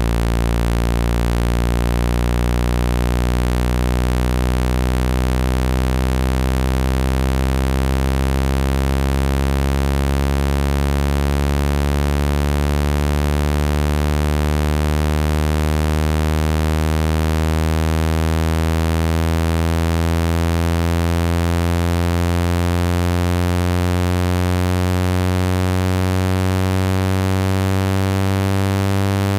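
Synthetic low buzzing drone with many overtones and a hiss over it, loud and even, slowly rising in pitch. It is a speaker-cleaning sound meant to vibrate water out of a phone's loudspeaker.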